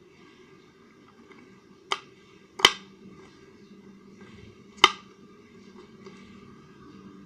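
Slime being squeezed and worked by hand, giving three sharp popping snaps: about two seconds in, again half a second later, and near five seconds.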